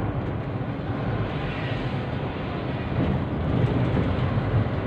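Bus engine and road noise heard from the driver's seat inside the cab: a steady low drone while driving.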